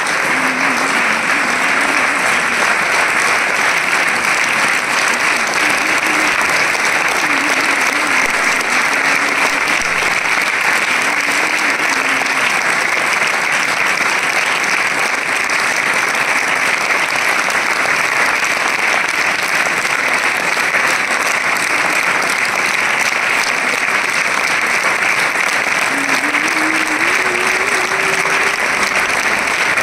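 A group of people clapping steadily and without a break, a welcoming round of applause. A faint wavering pitched sound runs underneath at times, in the first part and again near the end.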